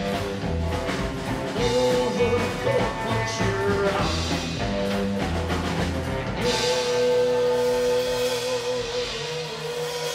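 Live rockabilly band playing: strummed acoustic guitar, upright double bass and drum kit with a male singer. About six and a half seconds in, the beat thins out and the singer holds one long note as the song winds down.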